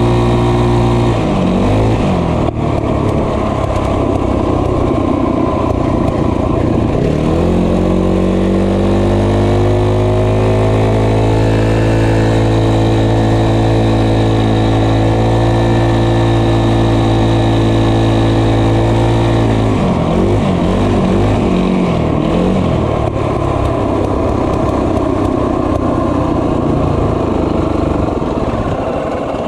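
Small motorbike engine of a minibike, pitbike or moped being ridden. The engine note holds steady, eases off about a second in, climbs back around seven seconds in and holds steady until about twenty seconds in, then eases off again.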